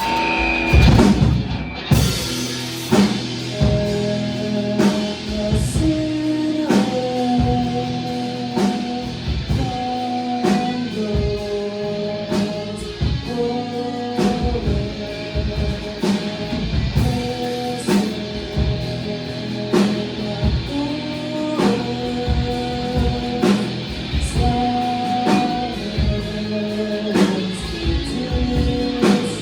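Rock band playing live: a ringing electric guitar melody over bass and drums. The full band comes in hard right at the start, after a quieter guitar passage.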